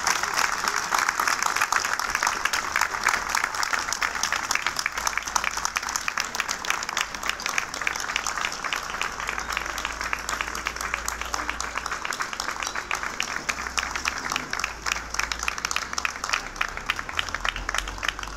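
Small crowd applauding, a dense patter of hand claps that slowly thins and fades toward the end.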